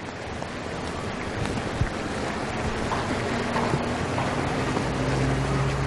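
Wind buffeting the microphone outdoors: a steady, noisy rush that grows slightly louder. Past the middle a low steady hum comes in.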